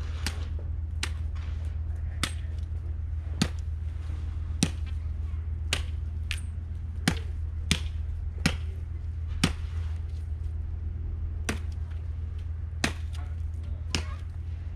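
Machete blows chopping into a split tree branch: sharp, separate whacks about once a second, with a short pause just past the middle, over a steady low hum.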